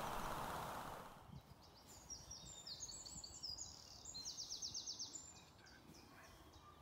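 Faint birdsong: a run of short, high chirping notes with a quick trill a little past halfway. A soft outdoor hiss fades out in the first second.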